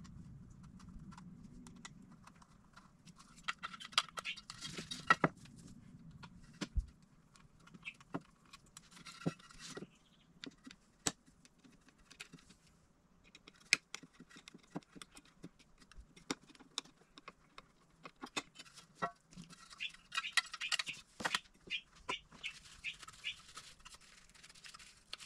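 Scattered small clicks, taps and scrapes of hand disassembly: a small hex driver turning out screws and the parts of a laser engraver's control-board housing being handled and set down, with a few short stretches of scratchy rubbing.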